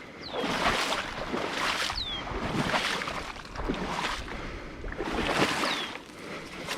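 Rustling swishes of someone walking through vegetation, about one step a second. A bird repeats a short high note that falls in pitch, four times.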